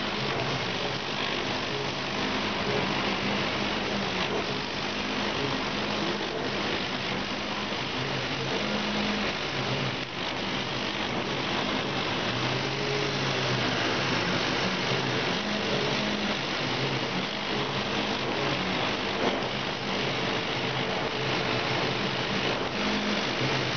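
Laser cutting machine running while it cuts paper: a steady rushing noise, with the drive motors humming in shifting tones as the head moves through curves.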